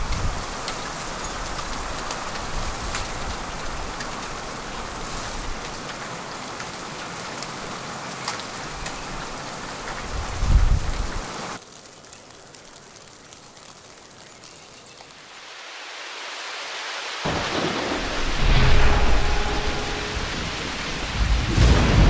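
Sleet and snow pattering steadily in a storm, with low rumbles of thunder. One rumble swells about ten seconds in, and the sound drops quieter for a few seconds before a longer, louder rumble builds over the last few seconds.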